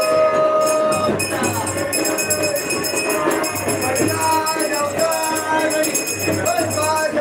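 Music with singing over a steady drum beat and rapid, even jingling percussion, loud and continuous.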